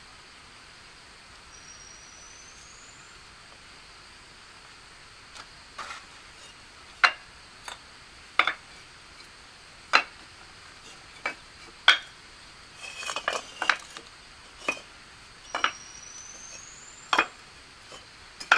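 Irregular sharp clinks and taps of hard objects, roughly one a second, beginning about five seconds in, with a quick flurry midway. Underneath is a faint steady high drone, and a short rising chirp comes twice.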